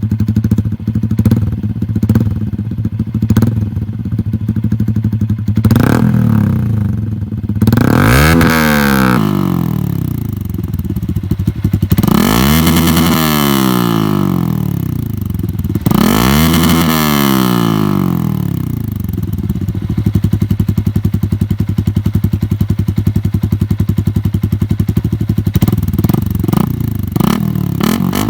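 Yamaha Sniper 150's single-cylinder four-stroke engine, breathing through an aftermarket SC Project exhaust canister, idling steadily. It is then blipped four times, each rev rising and falling back, before it settles to idle and gets one short blip near the end.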